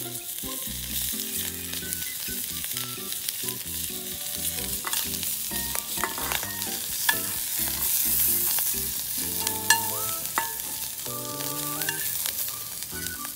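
Sausages sizzling in a steel frying pan over a wood fire, with metal tongs clicking against the pan and a metal bowl as the sausages are turned and lifted out.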